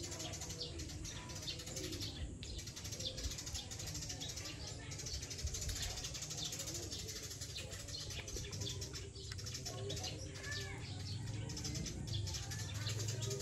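Birds chirping in the background, with many short calls throughout and a small cluster of arching calls near the end; faint voices underneath.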